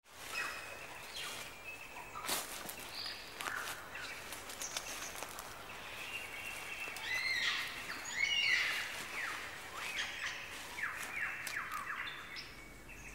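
Forest birds calling: clear whistled notes and chirps that rise and fall, with scattered sharp clicks and a run of quick falling whistles about eleven seconds in.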